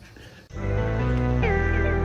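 Background music starting suddenly about half a second in: held chords with gliding notes over a steady low bass.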